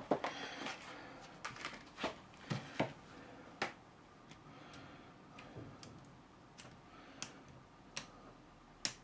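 Irregular small clicks and taps of metal parts being handled as the spring-clipped collar is worked off a ratchet screwdriver, busiest in the first three seconds.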